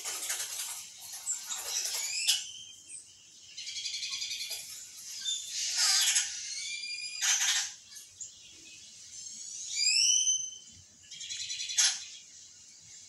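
Bird calls from a nature film playing through a television's speakers: harsh, buzzy trills alternating with sharp chirps and whistled swooping notes, with a quick run of swooping notes about ten seconds in.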